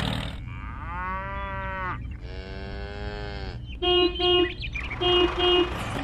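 A cow mooing twice in two long, drawn-out calls, followed by a horn beeping in two quick double toots, over a low steady hum.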